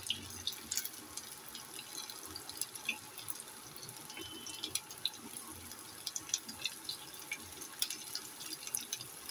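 Potato patties shallow-frying in hot oil in a non-stick kadhai: a steady sizzle with many small pops and crackles spread through it.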